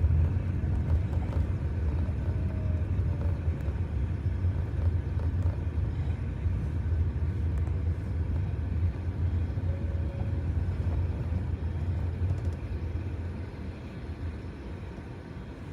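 Boeing 777-300 at takeoff thrust, its jet engines making a steady low rumble that eases off over the last few seconds.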